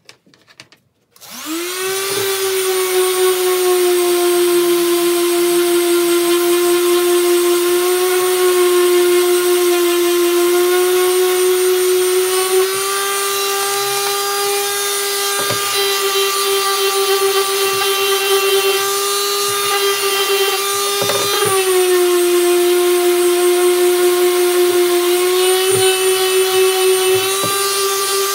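WORX electric detail sander switched on about a second in, spinning up to a steady high whine with a rasp of the pad sanding the edge of a wooden disc. The pitch dips and shifts slightly a few times as the pressure on the work changes.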